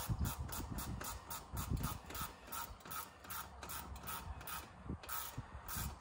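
Hand ratchet clicking in a quick, even run of about five clicks a second while a fastener is tightened down, the clicks thinning out and turning irregular over the last couple of seconds.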